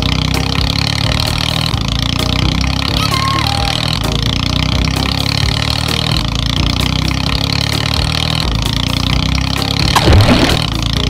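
A steady truck-engine running sound with a low, even rumble. About ten seconds in comes a louder splash with a falling sweep, as a toy crane truck plunges into water.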